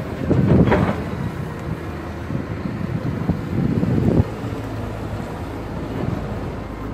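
Cat 320 hydraulic excavator's diesel engine running under hydraulic load while loading a dump truck: a loud rush of soil dropping into the truck's bed about half a second in. Around four seconds in the engine works harder as the bucket digs into the dirt pile, then drops off suddenly.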